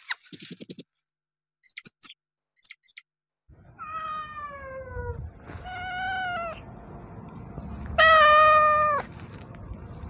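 A few short crisp crunches as a rabbit nibbles a dry leaf, then a kitten meowing three times, each call about a second long: the first slides down in pitch, and the last is the loudest.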